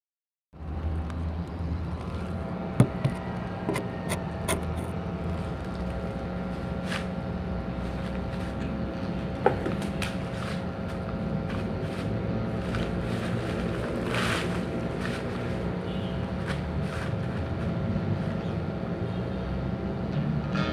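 Steady mechanical hum, like a running motor or engine nearby. A few sharp knocks over the first ten seconds, the loudest about three seconds in and again near ten seconds, as the phone and an acoustic guitar are handled.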